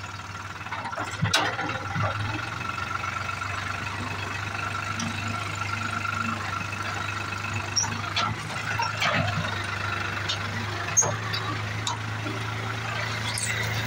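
Tractor engine idling steadily, with a few sharp clicks and knocks over it.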